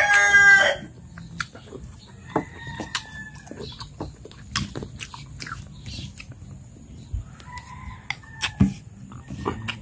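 A rooster crowing, the loud call ending about a second in. Fainter fowl calls follow twice, about three and eight seconds in, among short clicks of a metal spoon and eating sounds.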